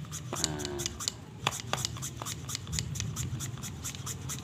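Fine sandpaper wet with diesel rubbed by hand around inside the bore of a Yamaha Vega ZR cylinder block, in quick rhythmic scraping strokes. The bore is being smoothed until it is almost slick, so the oversize piston will go in.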